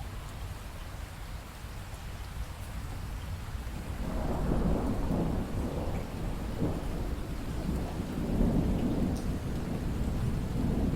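Steady rainfall, with a low rumble of thunder building about four seconds in and rolling on, rising and falling, to the end.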